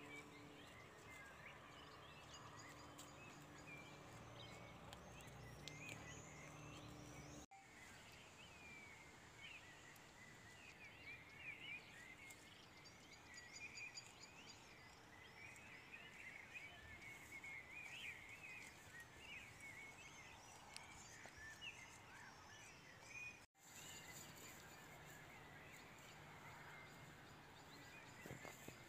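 Faint outdoor ambience with small birds chirping and twittering. The background changes abruptly twice, at edit cuts.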